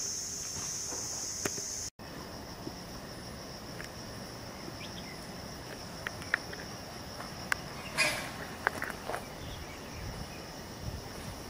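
Insects calling in a steady high-pitched drone, loud for the first two seconds, then fainter after a sudden break. Scattered clicks and a short rustle about eight seconds in.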